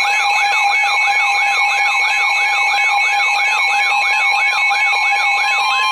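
Weather radio alert alarm sounding for an incoming warning: a siren-like tone sweeping up and down about three times a second over steady tones.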